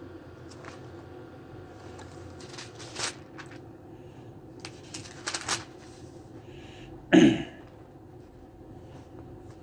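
Bible pages being turned, with soft rustles and a few crisp page flicks. About seven seconds in comes a brief louder sound that falls in pitch.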